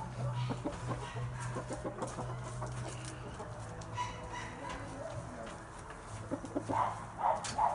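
Chickens clucking in a coop, with scattered short clucks and a cluster of three louder ones about seven seconds in, over a steady low hum.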